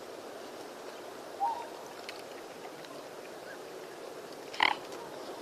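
Outdoor birdsong ambience: a steady background hum of nature with faint scattered chirps, a short call about a second and a half in, and a louder, brief bird call near the end.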